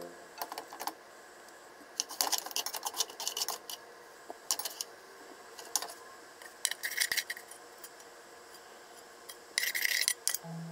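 Metal tongs clicking and clattering against a frying pan and a ceramic plate in short clusters, with two scraping spells, about seven and ten seconds in, as the onions and sauce are scraped out of the pan onto the plate.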